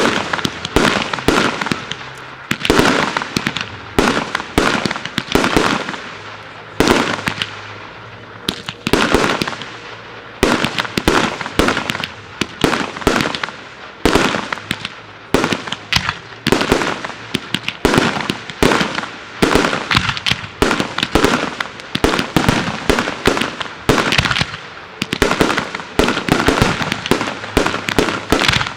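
Fireworks display: aerial shells bursting in quick succession, sharp bangs coming several a second at times, each trailing off, with no let-up.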